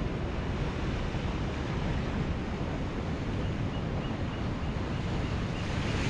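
Ocean surf breaking and washing around rocks, a steady rushing with a heavy low rumble from wind on the microphone. A wave breaks a little louder near the end.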